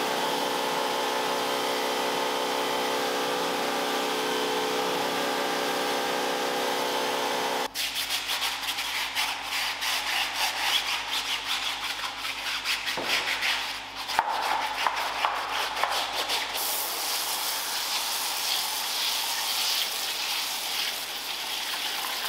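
A machine hums steadily, several even tones held together, for about eight seconds. After an abrupt change, a stiff detailing brush scrubs car interior surfaces in quick, repeated strokes.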